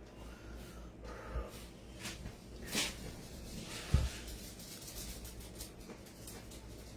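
Someone eating oatmeal from a bowl with a spoon: a few soft clicks and scrapes, with a dull knock about four seconds in.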